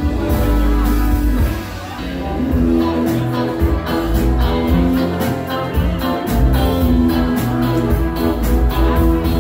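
Rock band playing live: electric guitar, bass guitar and drum kit. The band drops back briefly about two seconds in, then comes back in full with steady drum hits under sustained guitar notes.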